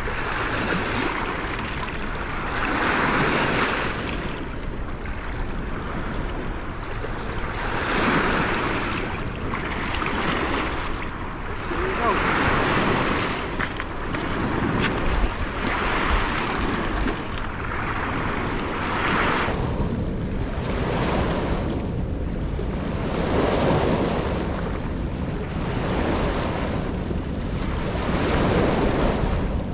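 Choppy river water washing against a rocky shore, swelling and falling every few seconds, with steady wind buffeting the microphone.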